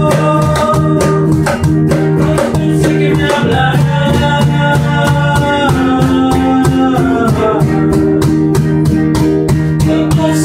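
Instrumental band music with guitar and a steady drum beat, sustained melodic notes over it.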